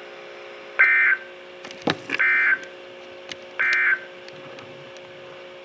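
Emergency Alert System end-of-message data bursts from a NOAA Weather Radio receiver: three short, identical buzzy warbles about a second and a half apart, the digital "NNNN" code that closes the alert. Under them runs a faint steady hum, with a couple of sharp crackles between the first and second bursts.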